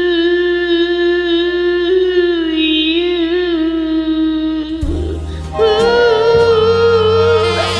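A singer holds the song's final note, "you", for about five seconds with a gentle vibrato over a jazz backing track. About five and a half seconds in, a saxophone comes in with the closing phrase of the arrangement.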